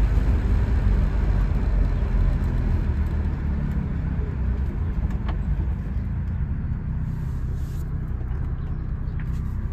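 1972 BMW Bavaria's straight-six engine and road noise heard from inside the cabin while the car moves at low speed, the sound gradually easing off as it slows.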